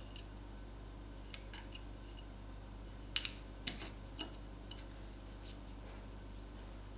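Faint, scattered small clicks and taps of an LG V20's main circuit board being fitted back into the phone's frame by hand, the loudest about three seconds in.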